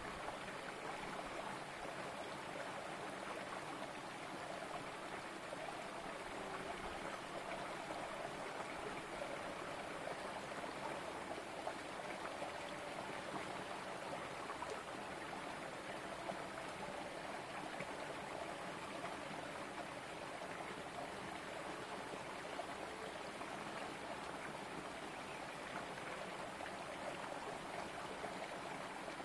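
Small rocky stream running down between boulders: a steady trickling flow of water.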